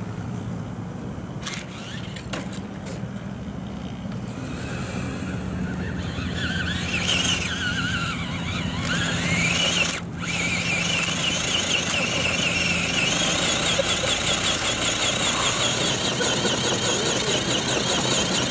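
Scale RC crawler truck's electric motor and geartrain whining as it crawls over loose gravel, the pitch rising and wavering with the throttle. There is a brief break about halfway through.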